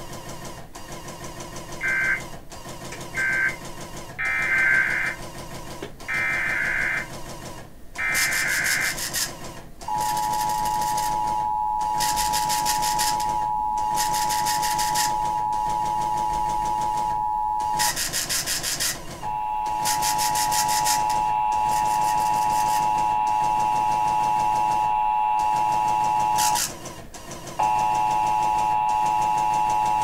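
Emergency Alert System data bursts over the radio for the first several seconds, then the EAS two-tone attention signal, a steady two-note electronic tone that breaks off briefly twice and starts again, with short bursts of noise over it.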